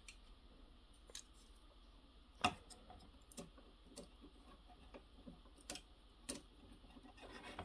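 Faint, scattered clicks and taps of hard plastic parts on a Kotobukiya HMM Zoids Liger Zero Empire model kit as it is handled and its side stabilizers are moved. About half a dozen single clicks, the loudest about two and a half seconds in.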